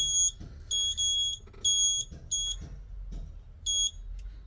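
Remote key frequency tester beeping just after being switched on: a series of high-pitched electronic beeps of uneven length, coming less often toward the end.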